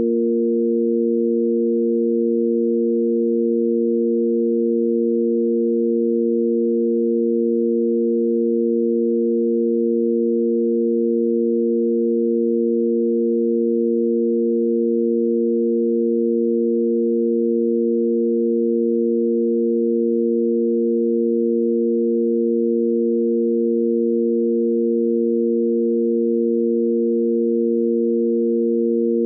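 Electronic sine-wave tanpura drone in A#: three pure, steady sine tones held together, the A# root, the fifth above it and the A# octave, unchanging throughout.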